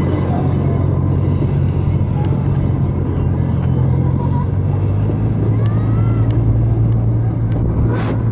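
Small zoo ride train running steadily along with a low engine drone and rolling rumble, heard from its open passenger car. A short burst of noise comes near the end.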